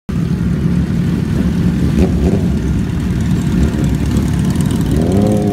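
Several motorcycle engines idling and running at walking pace, a steady low rumble.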